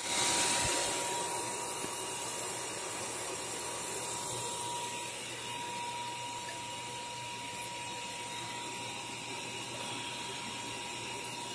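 Pure sine wave 2000 W 12 V inverter running under load: a steady fan-like whir with a thin, steady high whine over it.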